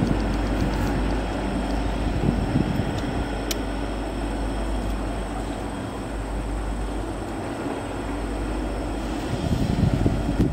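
Norfolk Southern diesel locomotive running light, a steady engine rumble with a low hum as it moves into a rail tunnel, growing louder near the end.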